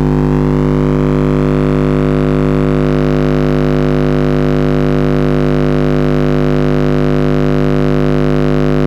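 A 50 Hz test tone played through a Skar ZVX 15-inch subwoofer driven by a Skar SK-1200.1D amplifier at 2 ohms: a loud, steady low drone with strong overtones. It grows fuller over the first few seconds as the amplifier's gain is turned up and its output voltage and current rise.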